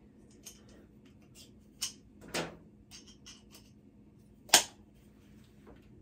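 Scattered small clicks and taps of a Phillips screwdriver working the handle screw of a Waltec tap, with the loudest click about four and a half seconds in.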